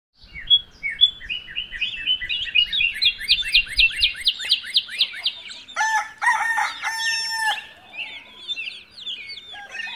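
Small birds chirping in a quick, even series of falling notes, then a rooster crowing from about six seconds in, with the chirping going on around it.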